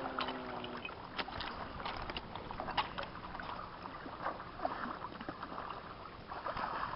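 Water splashing and sloshing as children swim and scoop water beside a small wooden boat in shallow water, with many small splashes and ticks scattered through.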